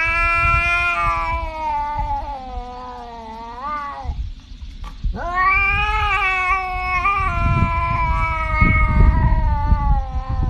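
Tabby cat yowling in two long, drawn-out caterwauls: the first bends upward in pitch at its end, and the second begins about five seconds in after a short pause.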